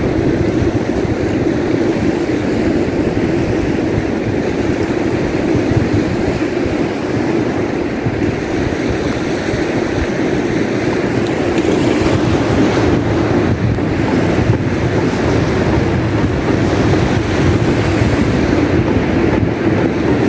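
Steady wind rumbling on the microphone over the continuous rush of surf breaking on a sandy beach.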